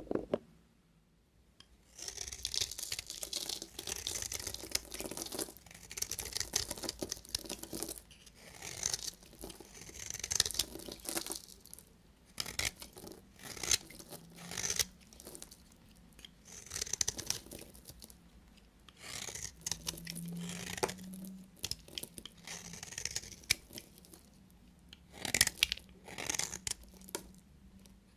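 Knife cutting through soap: a series of crunchy, crackly cutting strokes, each a second or two long, with short pauses between them, after about two seconds of near silence.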